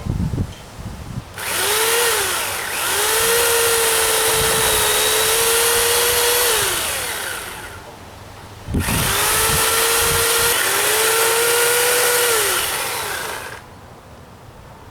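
Electric chainsaw cutting a dead tree limb in two runs of about six and five seconds. Each time the motor whine rises as it starts and falls away as it stops.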